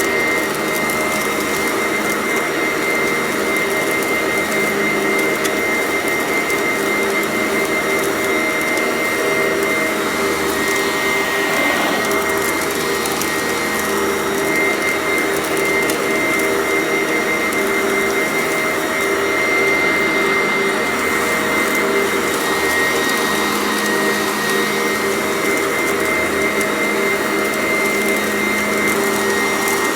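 Sanitaire commercial upright vacuum cleaner running steadily with a high motor whine while vacuuming up crunchy debris. The pitch wavers briefly about midway.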